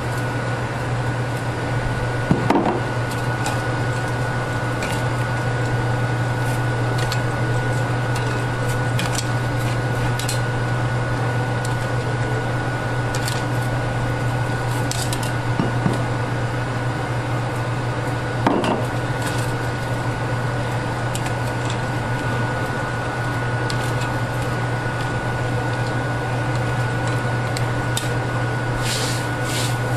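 A utensil clinking and scraping against a pan or bowl while roasted rice is stirred into a beef salad, with a few louder knocks, over a steady low hum and a thin high whine from an appliance.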